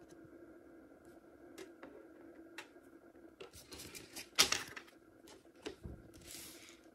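Hands handling trading cards and a hard plastic card case on a table: scattered light clicks and taps, one louder brief clatter about four and a half seconds in, and a short crinkle of foil booster packs near the end.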